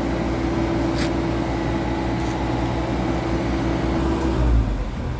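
Backhoe engine running steadily, with a steady whine over it that cuts off about four and a half seconds in, at a brief low surge of the engine.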